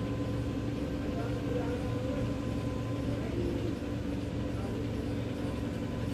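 Steady background hum with a few held tones and a low drone, even in level throughout.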